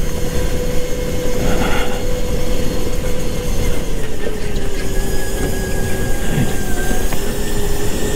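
Go-kart running on track: a steady whine that drops a little in pitch about four seconds in, over constant rumbling noise.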